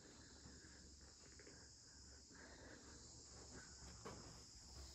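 Near silence, with a faint, steady high-pitched chirring of insects.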